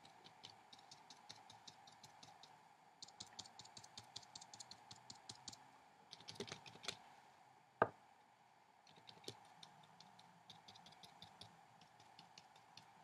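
Faint, rapid light ticks of a watercolour brush dabbing paint onto paper, coming in runs of several a second, with one sharper click about two thirds of the way through.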